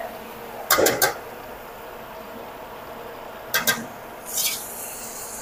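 A metal cooking utensil clinking against an aluminium pot while raw chicken pieces are stirred. Sharp clinks come about a second in and again after three seconds, with a brief scrape soon after, over a steady background hum.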